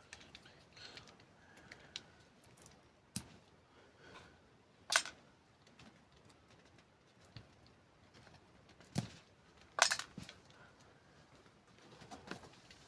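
Scattered sharp clicks and knocks from parts of an old desktop PC being handled during disassembly, loudest about five seconds in and twice more near nine and ten seconds.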